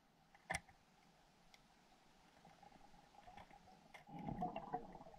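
Faint underwater sound through a diver's camera: a steady hum, a sharp click about half a second in, then a rumbling, crackling scuffle of water from about four seconds in as the diver's gloved hand grabs a king crab.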